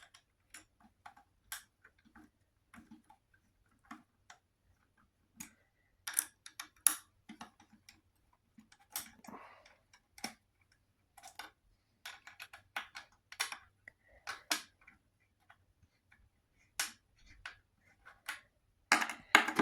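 Irregular sharp clicks and small knocks of a hand tool loosening and removing the bolts on a scooter's plastic kick plate, with short clusters of clicks here and there.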